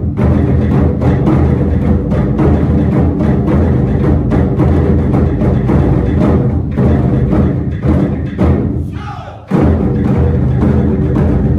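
Ensemble of Japanese taiko barrel drums (nagado-daiko) struck with sticks in a dense, driving beat. About eight seconds in the drumming thins and dies away, then all the drums strike back in together with a sudden loud hit about nine and a half seconds in.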